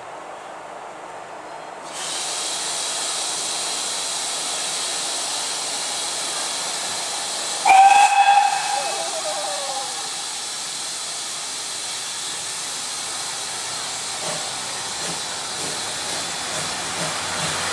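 Steam locomotive hissing steadily, the hiss starting abruptly about two seconds in, with one short, loud whistle blast near the middle that dies away on a falling note. The whistle is the departure signal as the train gets under way.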